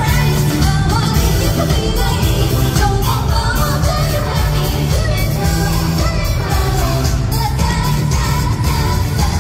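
K-pop girl group singing live into handheld microphones over a loud pop backing track, heard from among the arena crowd.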